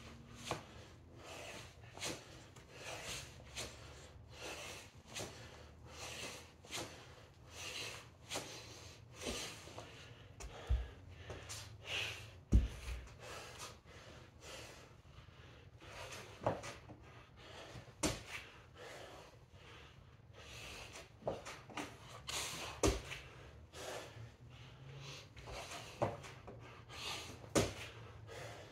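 A man breathing hard through a kettlebell and push-up workout, with sharp breaths about once a second. A heavy thud a little before halfway is a cast iron kettlebell being set down on the rubber gym floor.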